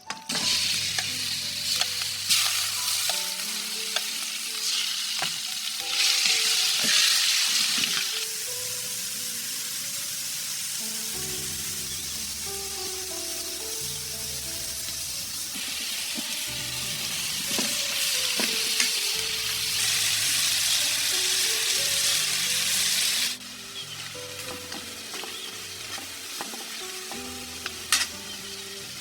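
Food frying in hot oil, a steady sizzle that swells louder twice and drops away sharply about three-quarters of the way through. A gentle melody of held notes plays underneath.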